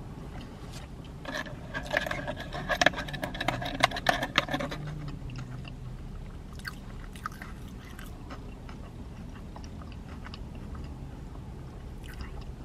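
Drinking a very thick strawberry milkshake through a straw. About a second in comes a few seconds of squeaking and scraping from the straw in the cup, then quieter sucking with small clicks; the shake is so thick it is hard to drink.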